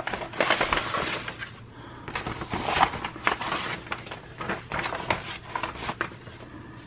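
Paper rustling and crinkling in irregular bursts, with small taps, as sheets of paper and a folded printed card are slid out of a paper envelope and unfolded on a table.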